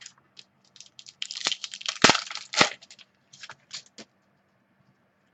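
Card pack wrapper crinkling and crackling in the hands as the next pack of football cards is torn open: a run of irregular crackles, thickest about two seconds in, dying away before the end.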